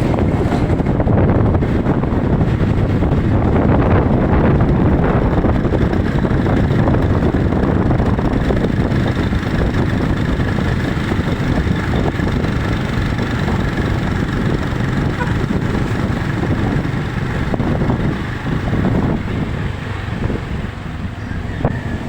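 Strong wind blowing across the microphone: a loud, steady low rumble that eases a little near the end.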